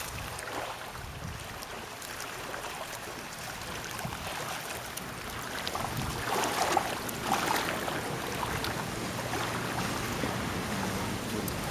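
River water lapping and splashing around a drifting raft, with wind on the microphone. The splashing gets louder and busier about six seconds in.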